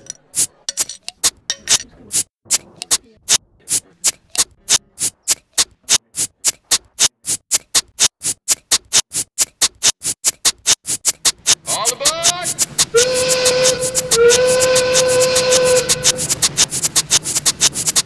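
Glass beer bottles clinked and tapped in an even rhythm that speeds up like a steam locomotive pulling away, from about two knocks a second to about six. About twelve seconds in, a whistle rises in pitch and then sounds two long held blasts over a hiss, like a steam train's whistle.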